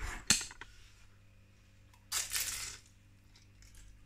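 A sharp click with a few small ticks, then a short crisp crunch about two seconds in as the fried pastry of a spring roll is bitten.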